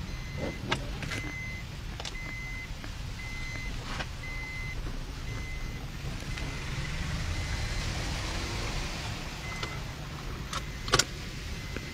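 A vehicle's reversing beeper sounding short, evenly spaced high beeps, about three every two seconds, stopping near the end. Under it is the low rumble of traffic and a hiss of tyres on a wet road that swells midway. A sharp click comes near the end.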